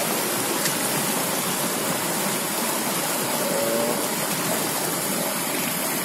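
Rushing water of a rocky stream tumbling over a small waterfall cascade: a steady, even hiss of flowing water.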